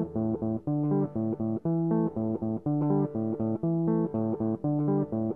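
Background music: a guitar picks a repeating riff of short, separate notes, about four or five a second, over a bass line.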